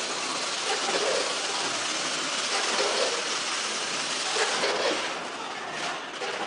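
Multihead weigher and packing machine running: a steady mechanical rush of noise that thins out about five seconds in.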